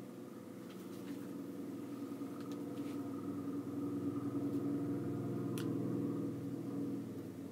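A steady machine hum that grows louder in the middle and eases off near the end, with a few faint clicks over it.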